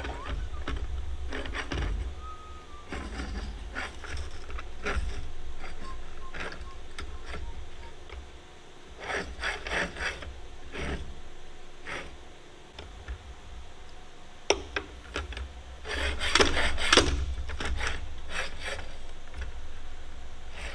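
Metal parts and hand tools being handled while a spring-loaded wheel bracket is fitted: scattered light clicks, taps and scraping, with two spells of quick clicking about nine seconds in and again near the end. A steady low rumble runs underneath.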